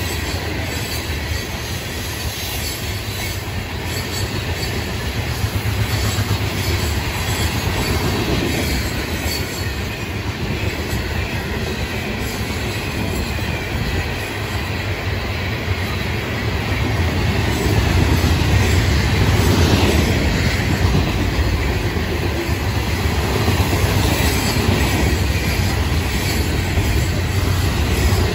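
Freight train's hopper and covered hopper cars rolling past at track speed: a steady, loud rumble of steel wheels on rail with scattered knocks and clanks, growing louder about two-thirds of the way through.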